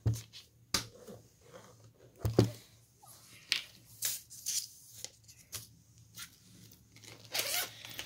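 Paper and a spiral notebook being handled on a desk: sharp taps and knocks, the loudest about two and a half seconds in, then lighter clicks and paper rustling as a printed slip is laid on the page.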